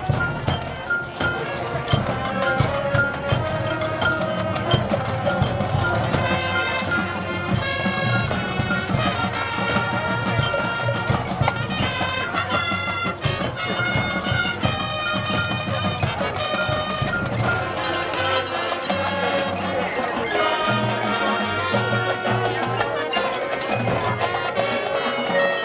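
Marching band playing a field show: sustained wind chords over a steady beat from the drumline and front-ensemble percussion.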